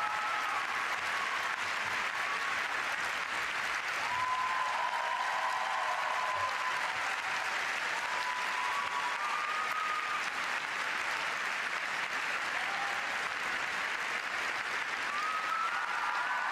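Arena audience applauding steadily, with a few faint held cheers rising over the clapping now and then.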